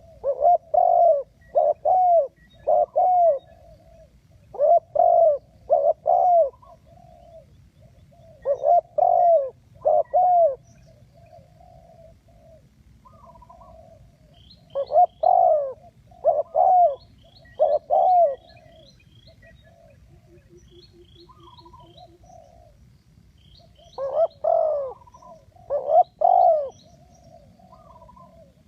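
Spotted dove cooing in repeated phrases of three or four low, falling notes, with pauses of several seconds between phrases. Faint, high, quick chirps of a small bird can be heard in the background from about halfway.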